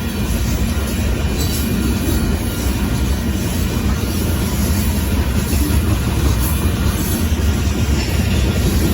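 A Union Pacific sand train's freight cars rolling past: a steady, loud, low rumble with irregular wheel clatter on the rails.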